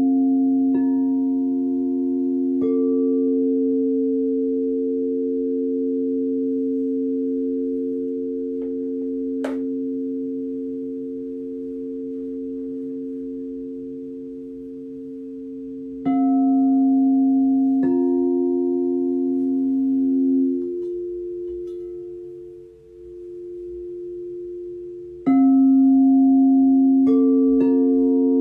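Singing bowls struck in turn, their low tones ringing and overlapping for many seconds with a slow wavering beat. Fresh strikes come about two-thirds of the way through and again near the end, and one ringing tone is cut short soon after; there is a single sharp click about a third of the way in.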